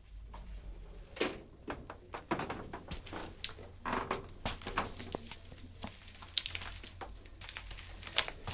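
Small kittens scrabbling and scratching on a metal tray and cardboard, giving irregular clicks, taps and rustles, with a few faint high chirps about halfway through.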